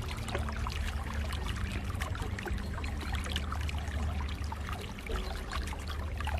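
Lake water splashing and trickling, a steady run of small splashes over a constant low rumble.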